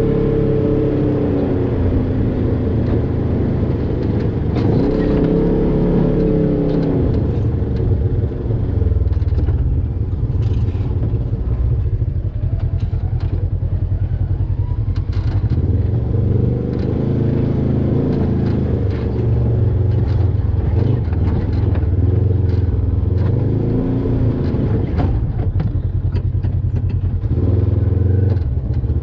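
Polaris RZR XP 1000 side-by-side's twin-cylinder engine working at low speed, revving up and easing off again and again while crawling over rock. Scattered clacks and scrapes of rock against the tires and underbody run under the engine.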